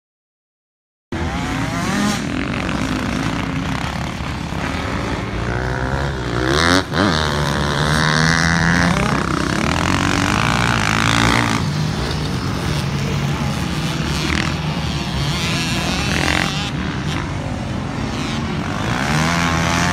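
Several motocross dirt bikes riding the track together. Their engines rev up and down through the turns and jumps, starting about a second in.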